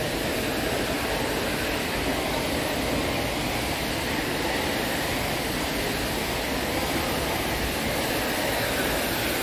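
Steady mall-atrium ambience: a constant hiss of water splashing from an indoor fountain's jets, over the hum of air handling.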